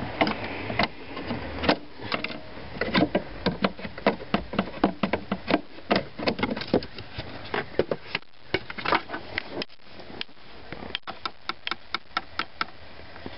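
Irregular clicks and knocks of a screwdriver and hands working against a hard plastic mounting bracket, thick and fast through the first half, then a run of quicker, evenly spaced clicks near the end.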